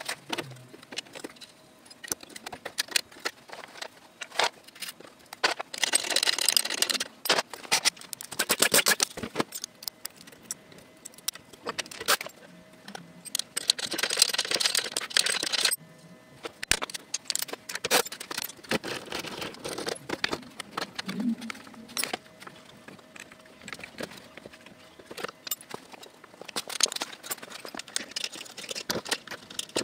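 Metal clinks, rattles and clicks of hand tools and parts being handled at a car's front brake and wheel hub, with two stretches of dense rapid clicking about six and fourteen seconds in.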